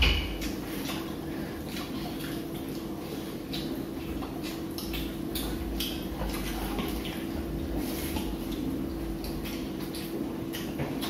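Quiet eating at a table: scattered light clicks and taps against plates as hands and serving spoons work the food. A steady faint hum runs underneath.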